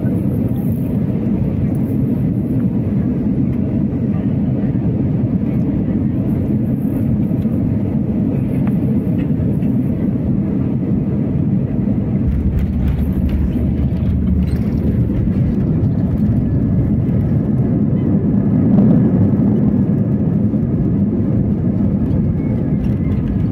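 Airbus A320 cabin noise heard from a window seat over the wing during landing: a steady engine and airflow rumble that deepens about halfway through as the jet runs along the runway, swelling briefly near the end.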